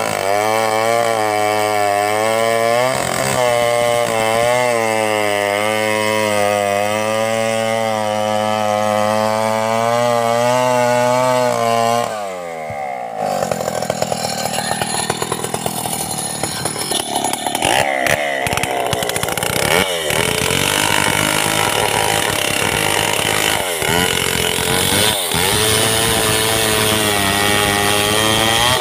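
Chainsaw ripping lengthwise through coconut palm logs, its engine note wavering up and down as the chain bites under load. The sound briefly drops about twelve seconds in, then the saw runs on with a rougher, less even tone and a few short dips.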